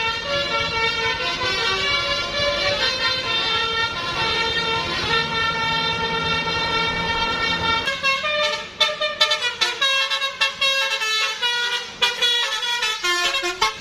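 Basuri multi-tone 'telolet' bus horn playing a melody. It holds notes that step from pitch to pitch for about eight seconds, then breaks into a quick run of short staccato notes.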